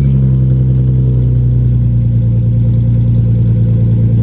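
Nissan 350Z's 3.5-litre V6 engine idling steadily.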